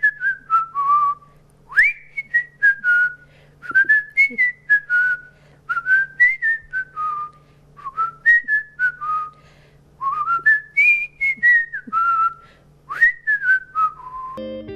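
A person whistling the same short phrase over and over: a quick upward swoop followed by a few falling notes, about every two seconds, with a faint steady hum underneath.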